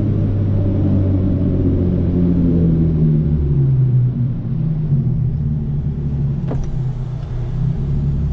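Straight-piped Hyundai Genesis Coupe 3.8 V6 exhaust droning at low revs. Its pitch eases down a little a few seconds in, then holds steady, with no hard rev.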